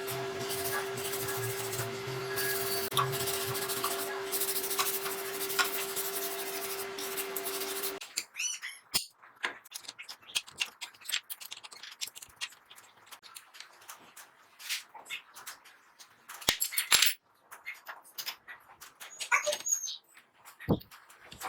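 Homemade 2x72 belt sander, driven by an electric bike motor, running with a steady whine over the hiss of the belt, then stopping abruptly about eight seconds in. Scattered clicks and knocks follow.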